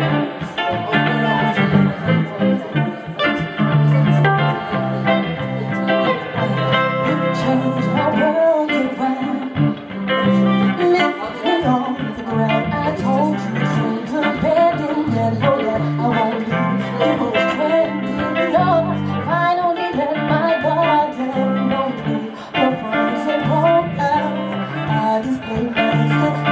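Live music with guitar and a female singer's melody over a steady bass line.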